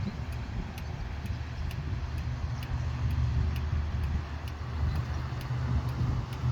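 A steady low engine hum, with a faint, regular ticking about twice a second.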